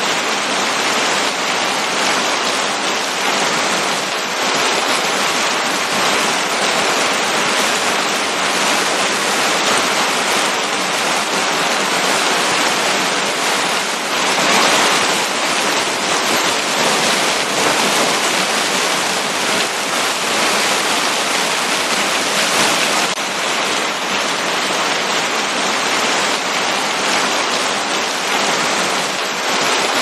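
Heavy rain pouring down: a dense, steady hiss of splashing drops, a little louder for a moment about halfway through.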